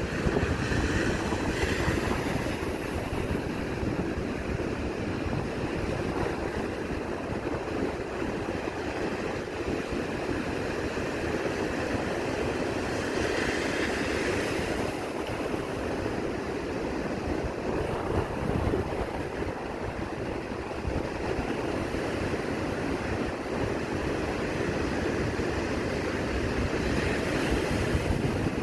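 East Sea surf breaking and washing on the shore in wind and rain, with wind buffeting the microphone. It is a continuous rush, with larger waves swelling louder about a second in, around the middle, and near the end.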